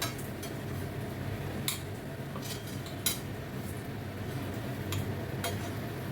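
A cooking utensil scraping and clinking against a pan as fried food is scooped out into a mixer jar. There are a few sharp clinks over a steady low hum.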